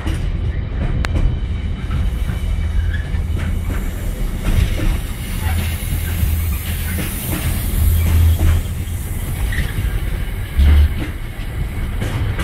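Container freight wagons rolling past at speed: a steady low rumble of wheels on rail, with clattering and knocking over the joints and a louder low thump near the end.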